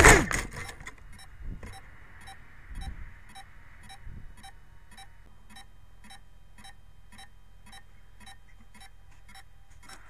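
A quadcopter drone, sped up fourfold, crashes into tree branches with a loud clatter, and its motor whine stops within about a second as it gets stuck in the branch. After that comes a faint, even ticking, about two to three ticks a second.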